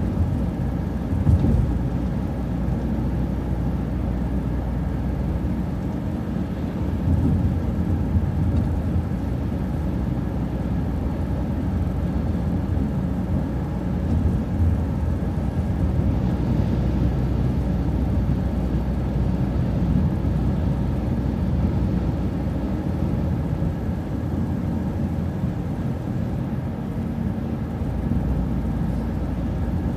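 Steady running noise of a city transit bus heard from inside while driving: a continuous low engine and road drone.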